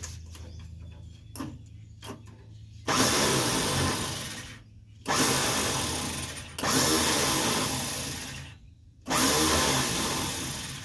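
A motor runs in four short bursts of about two seconds each, every one starting sharply and fading away.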